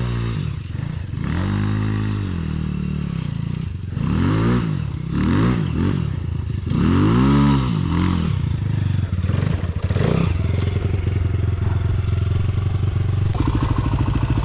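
Single-cylinder dirt bike engine blipped up and down in a string of short bursts of throttle, as on a slow climb through scrub, then running steadily at low revs from about ten seconds in.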